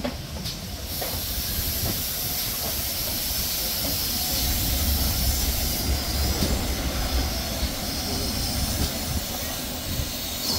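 Steam hissing from a GWR 4575 class 2-6-2T tank locomotive over a low, steady rumble of the train. The hiss starts about a second in and eases off after about six seconds.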